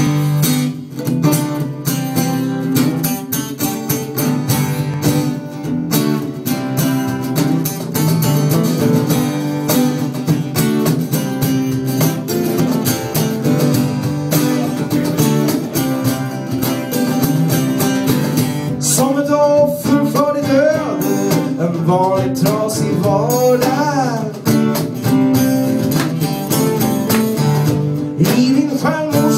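Instrumental intro of a song played by a band with strummed acoustic guitar; a gliding melody line joins about two-thirds of the way in.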